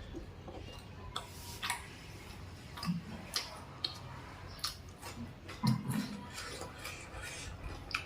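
Close eating sounds of someone chewing cooked goat meat: irregular wet clicks and lip smacks, with a couple of short low mouth noises about three and six seconds in.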